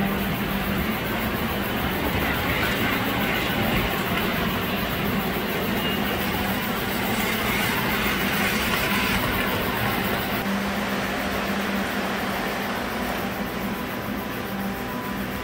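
Miniature model trains running on a large layout: a steady, continuous rolling rumble with a constant low hum.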